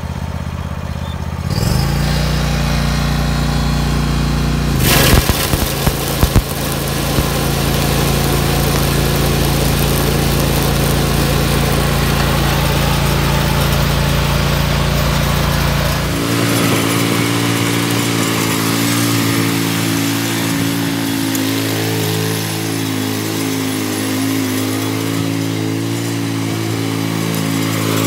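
Hustler Raptor zero-turn mower's engine running, stepping up in speed about a second and a half in. A few seconds later comes a brief clatter as the mowing deck is engaged; the deck carries string cutters instead of steel blades. From about sixteen seconds the mower is being driven across the grass, its engine note wavering.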